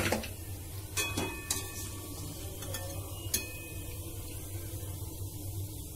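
Metal cooking utensils (a spoon and a steel wire skimmer) clinking against a steel frying pan while lifting fritters out of the oil: four sharp clinks with a short ring in the first three and a half seconds, over a low steady hum.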